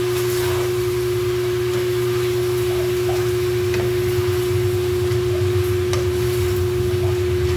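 A loud, steady single-pitched hum with a lower drone beneath it runs throughout, over a few faint scrapes and ticks of wooden spatulas stirring jackfruit in a frying pan.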